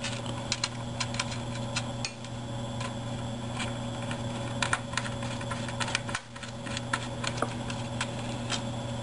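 Irregular small clicks and taps of a screwdriver and small screws against a strain relief clip and metal plate as the screws are started by hand, over a steady low hum.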